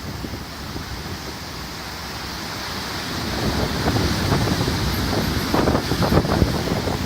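Wind buffeting the microphone in irregular gusts over a steady rushing hiss, a little louder in the second half.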